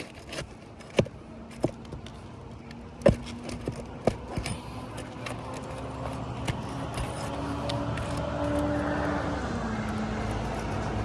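Several sharp metallic knocks and clicks in the first half from a pry bar working roofing-shingle nails loose, then a motor vehicle's engine growing louder from about five seconds in and running on steadily.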